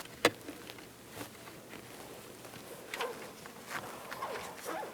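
Electrical tape being wrapped to fasten a wire to a wire-feeding tool: a sharp click about a quarter-second in, then faint scattered rustling and a few short scrapes.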